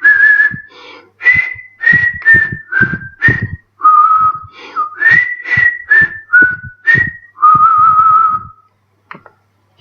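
A man whistling a tune with his lips: a run of short, separate notes moving up and down, then one long held note with a slight vibrato near the end.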